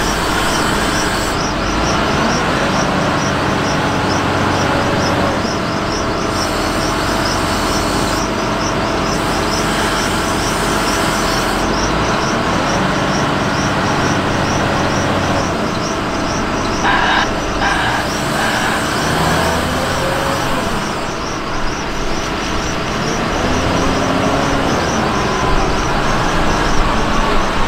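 Hidromek HMK 640 wheel loader's diesel engine working hard as the loader pushes its bucket into a sand pile and backs out with a full load. Two short sharp sounds stand out about two-thirds of the way through.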